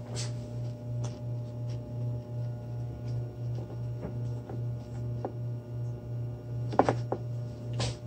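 A low, steady hum pulsing about three times a second, with faint ticks and a few sharper clicks near the end as a freshly poured lead jig is handled.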